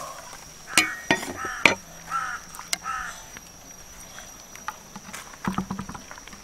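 A few sharp knocks, then a bird, probably a crow, calling several times in short calls over a steady high-pitched whine. A cluster of lighter knocks and taps comes near the end.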